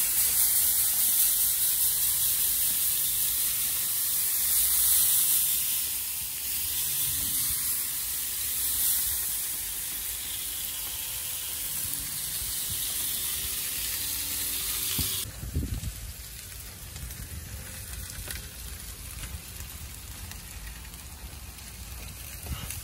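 Chicken drumsticks sizzling on a hot charcoal grill grate as a spray nozzle mists liquid over them: a loud, steady hiss that swells and eases every few seconds. About fifteen seconds in it cuts off abruptly to a much quieter background.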